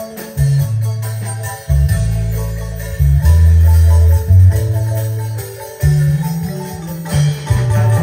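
Live dance band playing, with a deep bass line moving in held notes under a keyboard melody, drums and a jingling, tambourine-like percussion.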